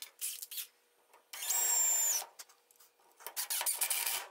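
DeWALT 20V cordless driver sinking a wood screw into plywood in two short runs of about a second each: first a steady high motor whine, then a rougher, rasping run as the screw bites into the wood. Small handling clicks come before them.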